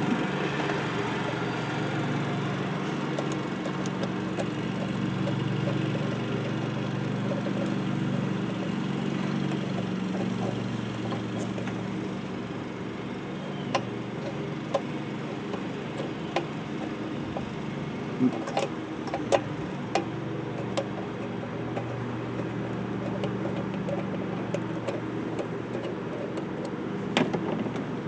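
Lawn mower engine running steadily, its pitch wavering as it works through overgrown grass. A few sharp clicks and knocks come through in the middle and near the end.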